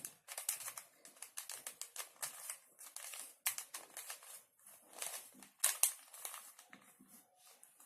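Rubik's cube being twisted through an algorithm, its plastic layers turning with quick, irregular clicks and rattles that thin out near the end. The moves place the last edge piece of the second layer.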